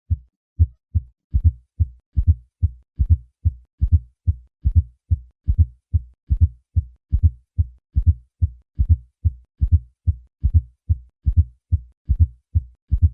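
Heart sounds heard through a stethoscope: a steady run of short, low-pitched thuds in a triple gallop rhythm, with a faint fourth heart sound just before each first heart sound. This atrial gallop is the sign of a stiff, non-compliant left ventricle.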